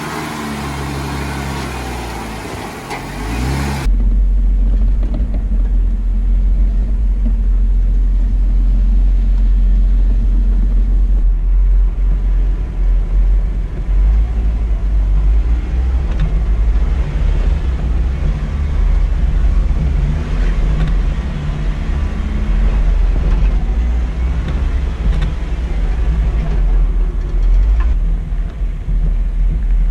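A Jeep's engine running at low revs as it crawls over rock, under a heavy, steady low rumble. The sound changes abruptly about four seconds in.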